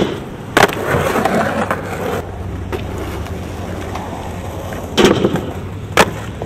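Skateboard wheels rolling on asphalt with a steady rumble, broken by sharp clacks of the board striking the ground: one about half a second in, and two more about a second apart near the end.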